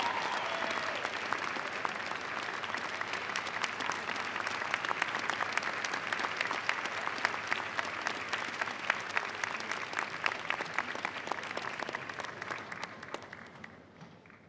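A large crowd applauding, many people clapping densely. It slowly thins and fades away near the end.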